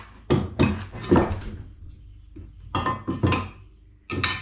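Irregular metal clanks and knocks as a log is worked onto the steel bed of a WoodMizer LT15 portable band sawmill, some strikes ringing briefly.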